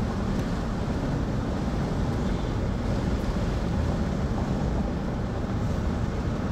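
Steady rumble of a car driving on a road: engine and tyre noise, heaviest in the low end and unchanging throughout.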